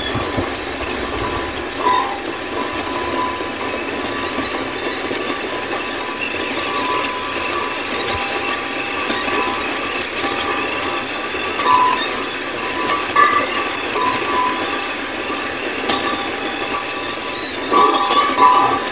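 Water boiling: a steady hiss with many small clicks and rattles, swelling briefly a few times and most strongly near the end.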